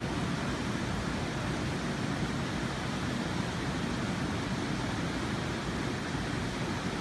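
Steady rushing of a small stream's flowing water.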